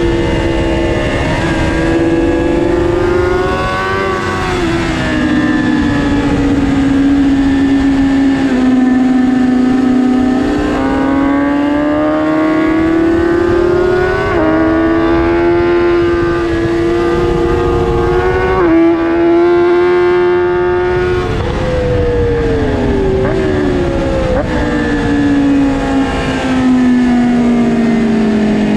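2022 BMW S1000RR's inline-four engine at high revs, heard from a camera mounted on the bike, its pitch rising and falling as the bike accelerates and slows through corners. The pitch jumps suddenly twice about halfway through, at gear changes.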